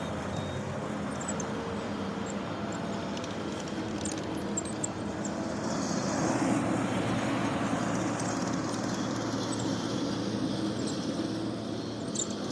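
Skid steer engine running steadily as the machine works, growing louder for a couple of seconds about six seconds in.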